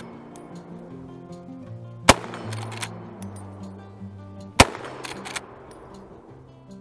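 Two shots from a Henry Side Gate lever-action rifle in .38-55, about two and a half seconds apart, each echoing off the range, with lighter clacks of the lever being worked between shots. Background music plays underneath.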